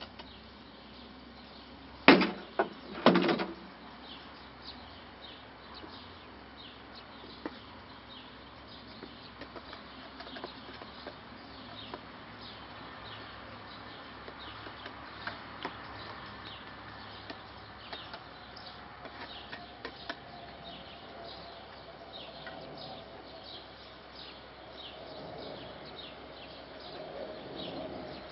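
A short clatter of sharp knocks about two seconds in, like a wooden box or tool being knocked. After it, small birds chirp in the background.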